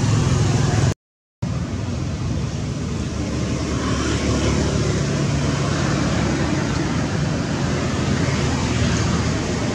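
Steady outdoor background noise with a heavy low rumble and no distinct calls. It cuts out completely for about half a second around one second in, then carries on unchanged.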